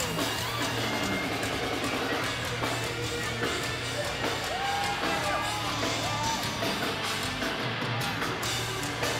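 A live heavy metal band playing loudly: electric guitars over a drum kit, with a few sliding high notes about halfway through.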